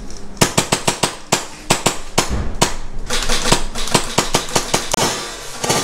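Airsoft gunfire: a run of sharp, irregularly spaced cracks, quicker for a moment about three seconds in.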